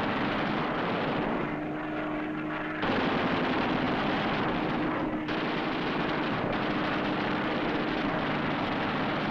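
Fighter plane engine running with a steady hum under dense, rattling machine-gun fire, as in a strafing run; the sound changes abruptly about three seconds in, at an edit.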